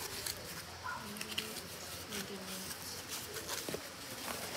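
A small cardboard box being handled: scattered soft taps and scrapes of the cardboard flaps and hands against it.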